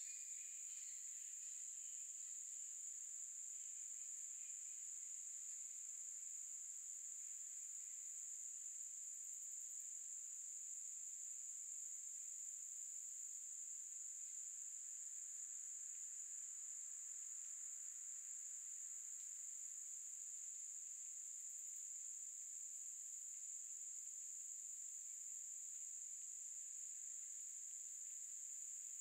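Insects in a summer forest singing in one steady, unbroken high-pitched drone.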